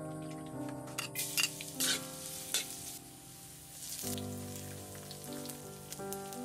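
Chopped garlic sizzling in a little hot oil in a metal wok, with a cluster of sharp crackles as it goes in about a second in, then a lighter sizzle. Background music with held notes plays throughout.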